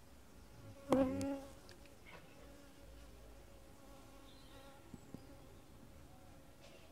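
Honeybees buzzing steadily around an open hive. About a second in there is a sharp knock and then a louder buzz for about half a second, as if a bee passed close. Two small clicks come near five seconds.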